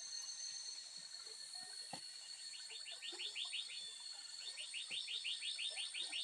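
A bird's rapid series of falling chirps, about eight a second, in two runs, over a steady high insect drone.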